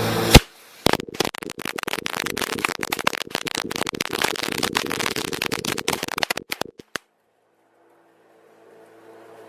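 A string of firecrackers going off: one loud bang, then a rapid, dense crackle of bangs for about six seconds that stops suddenly.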